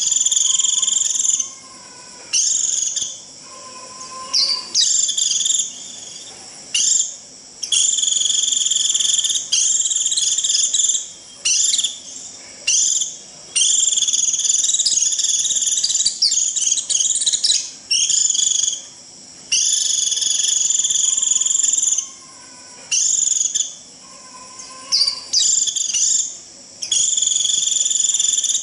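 White-eye (vành khuyên) giving its shrill, buzzy 'rít' call over and over, in bursts of about one to two seconds with short gaps. This is the flock-calling call used as a lure to draw other white-eyes in.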